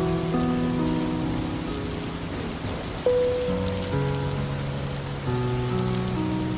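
Steady rain falling, an even hiss of drops, with soft, slow music of long held notes underneath; a new note sounds sharply about three seconds in.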